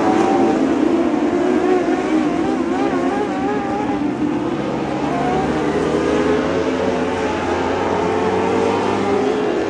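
A pack of dwarf race cars' motorcycle engines racing together, several engine notes overlapping and wavering up and down in pitch as the drivers lift and get back on the throttle.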